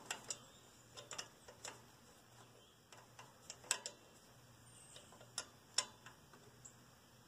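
Hand wrench working a nut on a tractor carburetor in short strokes: faint, irregular light metallic clicks and ticks, with a couple of sharper ones in the second half.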